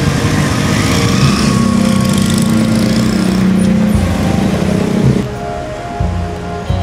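A motor engine running with a steady low hum, dropping away sharply about five seconds in.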